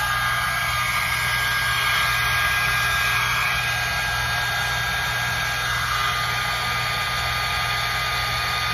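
InfinitiPro by Conair hot air brush (blow dryer brush) running steadily on its highest setting: a constant rush of air with a thin, high motor whine.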